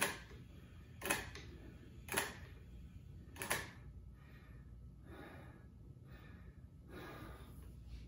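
Pasco mechanical-equivalent-of-heat apparatus hand-cranked slowly: four sharp clicks roughly a second apart, one per turn, followed by fainter soft rubbing sounds as the cranking eases off.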